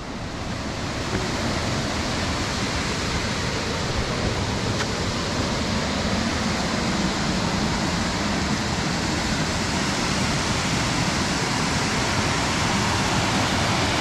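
Steady rushing of falling water from a waterfall, growing louder over the first couple of seconds and then holding even.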